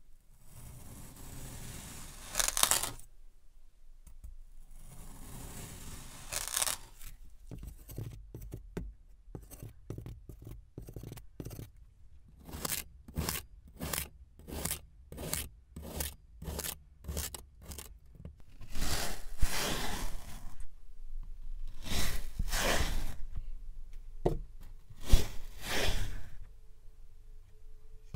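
Knife blade slicing through kinetic sand, each cut a dry, grainy scrape. First come two long, slow cuts, then a run of quick short cuts about two a second, then a few longer, louder cuts near the end.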